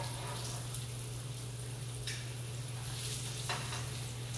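Potatoes sizzling steadily in hot fat in a sauté pan, with two light clicks of metal tongs against the pan. A steady low hum runs underneath.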